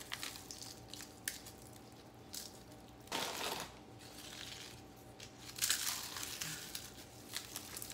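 Cheez-It crackers being crushed by hand and crumbled over a pan of macaroni and cheese: several short bursts of crunching and crackling, the largest a little after three seconds in and again near six seconds.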